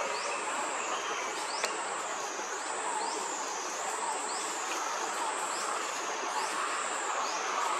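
Forest insect chorus: a steady high-pitched buzz that dips and swells about every second and a quarter, over a continuous hiss.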